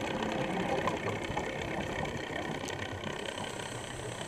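Underwater sound picked up through an action camera's waterproof housing: a scuba diver's exhaled bubbles rising from the regulator, an even crackling noise with scattered clicks.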